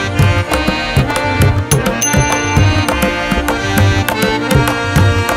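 Background music: melodic instruments over a steady drum beat.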